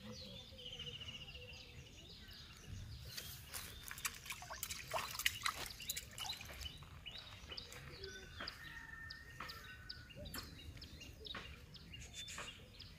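Small water splashes and knocks crowd the middle few seconds, as a fish tugs at the fishing float. Birds chirp and call throughout.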